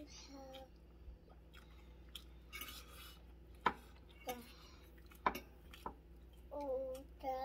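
Eating at the table: close-up chewing and mouth noises with a few sharp clicks of forks against plates, and a short hummed or voiced sound near the end.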